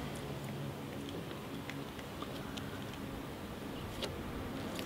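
Quiet background with a few faint, light ticks from gloved fingers handling a small metal badge against a car's door panel.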